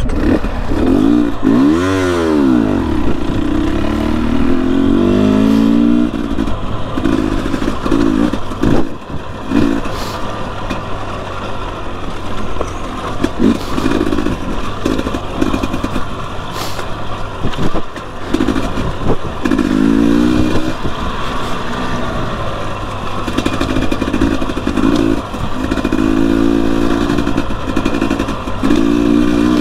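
2021 Husqvarna TE250i two-stroke dirt bike engine, its pitch rising and falling again and again as the throttle is opened and closed, with scattered clattering knocks.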